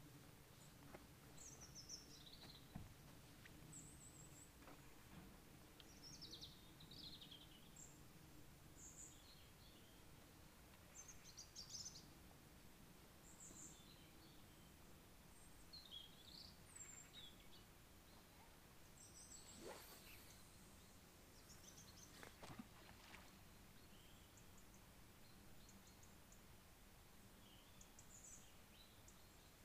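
Faint chirps and short calls of small birds, scattered throughout, over a quiet outdoor background. Two brief rustling sounds come about two-thirds of the way through.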